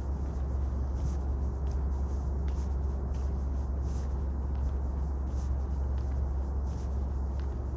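Footsteps of someone walking at an even pace, faint regular scuffs over a steady low rumble.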